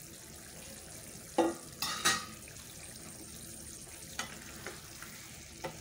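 Pumpkin and chana dal curry simmering in a kadai with a faint steady sizzle. Two sharp metallic clinks come about 1.5 and 2 seconds in, then a spatula stirs the thick curry with a few light taps against the pan.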